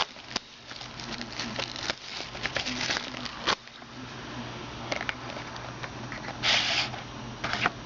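Plastic wrapping of a trading-card box crinkling and tearing as it is opened, with scattered clicks and taps of handling and a louder rip about two-thirds of the way through.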